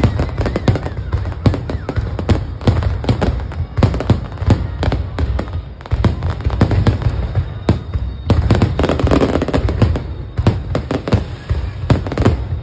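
Fireworks display: a dense, continuous barrage of aerial shell bangs and crackling, several reports a second over a constant low rumble.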